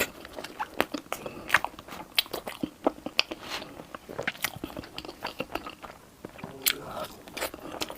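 Close-miked eating: a person biting and chewing crunchy food, with many irregular sharp crunches and crackles.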